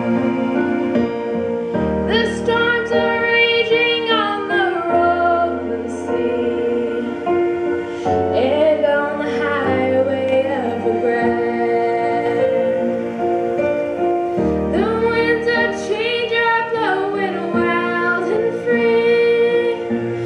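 A girl singing into a microphone, holding long notes over steady instrumental accompaniment.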